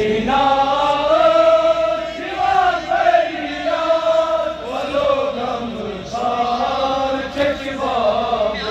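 Men's voices chanting a Kashmiri noha, a Shia mourning lament, in long held notes that slide between pitches.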